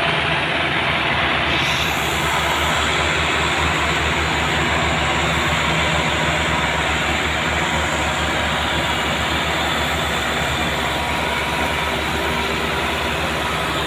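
Massey Ferguson 385 diesel tractor engines running steadily, with a rapid, even low throb.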